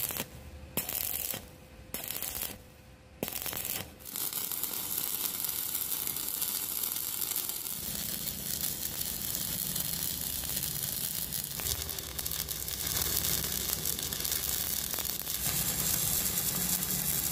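Shipping parcel being opened, its tape and plastic wrapping tearing and crinkling. A few short bursts at first, then continuous rustling.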